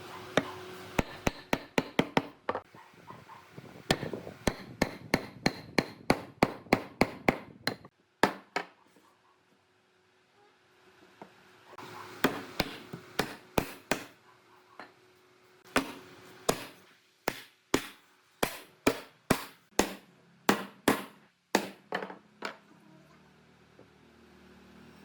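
Hammer blows on wood, struck in quick runs of about three a second, with a break of a few seconds near the middle.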